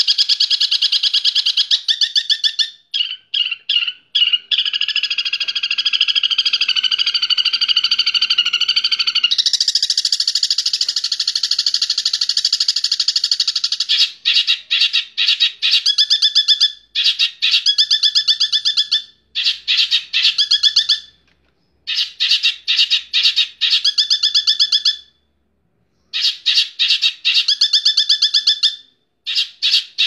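Caged long-tailed shrike (cendet) singing loudly: a fast, scratchy chatter of rapid repeated notes. It runs almost unbroken for the first half, then comes in phrases of a second or two with short pauses between them.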